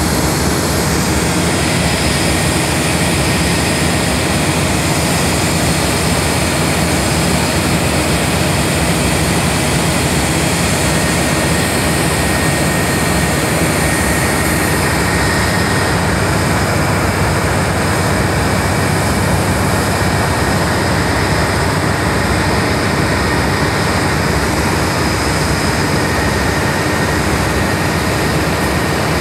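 Several Union Pacific diesel-electric freight locomotives idling together, a loud, steady engine noise that does not change.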